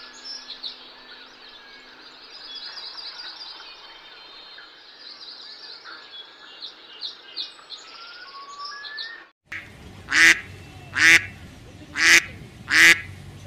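Small birds chirping and twittering over faint outdoor background. About nine and a half seconds in this gives way to a mallard duck's loud quacks, four of them about a second apart.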